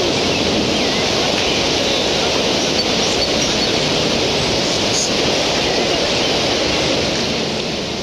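Steady rushing of river water, an even noise that holds without change.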